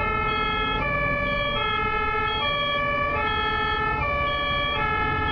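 German ambulance's two-tone siren (Martinshorn) sounding, stepping back and forth between a high and a low note about every three-quarters of a second, over a low rumble of road traffic.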